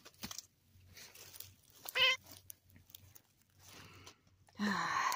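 Domestic tabby cat giving a short, high meow about two seconds in, then a louder, rougher, noisier sound near the end, with light rustling and handling clicks as it is petted.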